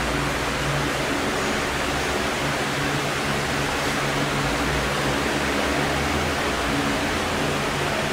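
Steady loud hiss, an even rushing noise with a faint low hum that swells and fades every second or so.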